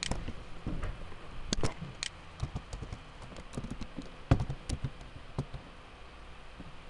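Typing on a computer keyboard: an irregular run of short key clicks that stops about five and a half seconds in, with one louder knock about four seconds in.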